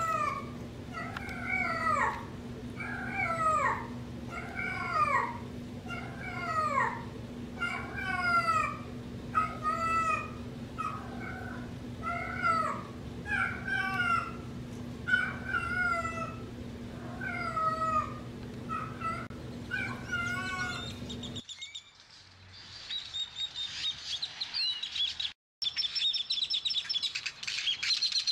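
Young female cat in heat giving her heat call over and over: short, drawn, bending yowls about one a second for some twenty seconds, over a steady low hum. The yowls stop abruptly and quick high bird chirps follow.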